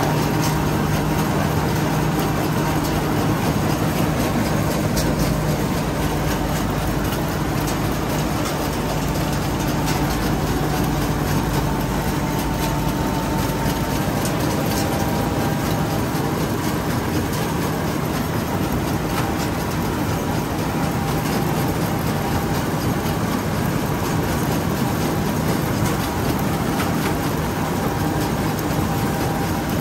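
Combine harvester running steadily: a constant engine drone with machinery noise that neither rises nor falls.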